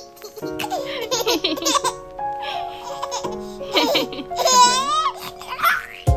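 A baby laughing in several short bouts over background music.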